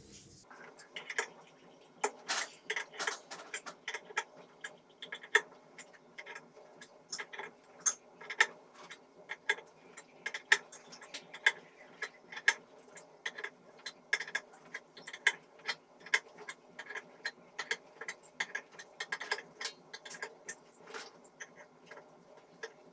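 Irregular sharp clicks and taps, a few each second, of hand tools and parts being handled while a washing machine is taken apart.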